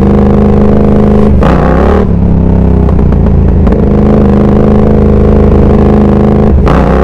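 Yamaha R7's parallel-twin engine running at a steady, low road speed under the rider, with a brief rush of noise and a shift in the engine note about a second and a half in.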